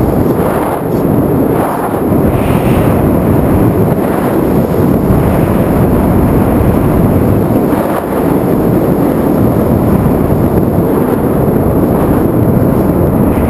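Loud, low, steady rushing wind buffeting the microphone of a flying FPV drone, with no clear motor tone.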